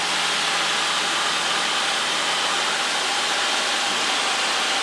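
Steady, even drone of a light aircraft's piston engine and propeller, with rushing airflow, heard from inside the cockpit in cruising flight.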